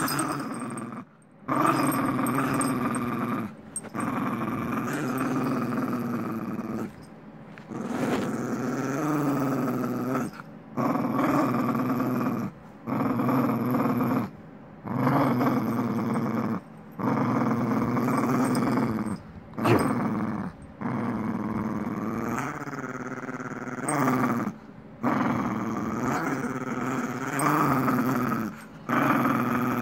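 Small dog growling in tug-of-war play over a rope toy with a rubber bone, held in its mouth: a long run of drawn-out growls, each a second or two long, broken by short pauses for breath.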